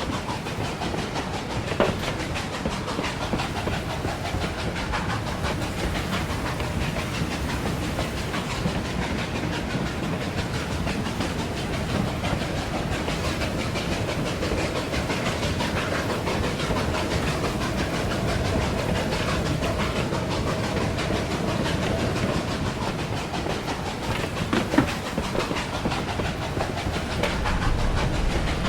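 Hand-made foley of a steam locomotive running along the track: a steady rumble and clatter with hiss, with a sharp knock about two seconds in and another near the end.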